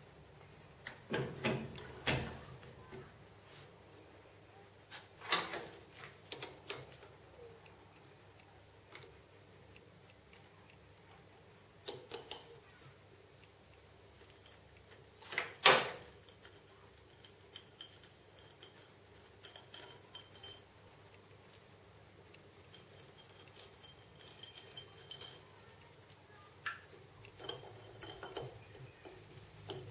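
Scattered metallic clinks and knocks as a machined metal part and hand tools are handled and unclamped on a milling machine's rotary table, the loudest a sharp knock about halfway through.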